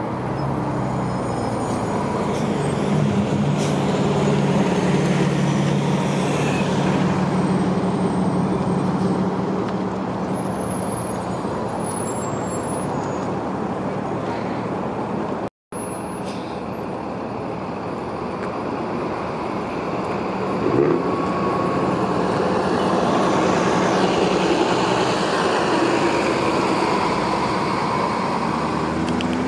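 Diesel transit buses running and moving through traffic, with a steady engine drone that is strongest in the first ten seconds. The sound cuts out for an instant about halfway through. A short, sharp burst comes about two-thirds of the way in.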